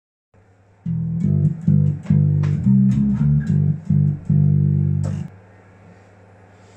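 Electric bass guitar playing a short riff of plucked low notes, then stopping about five seconds in, leaving a low steady hum.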